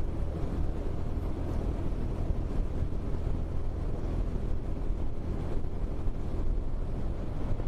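Motorcycle riding along the road: a steady low engine and road rumble mixed with wind noise, recorded on a helmet-mounted action camera.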